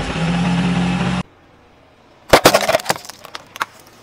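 A car engine runs steadily for about a second and then cuts off abruptly. After a short pause comes a quick run of loud sharp cracks and snaps as a car tyre rolls over disposable plastic lighters and crushes them.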